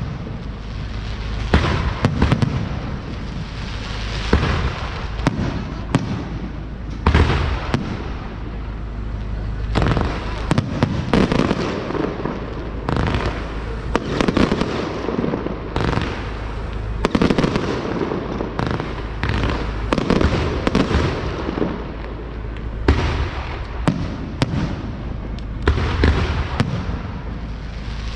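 Fireworks going off without a break: sharp bangs come in quick clusters every second or two over a steady rumble and crackle of bursting shells.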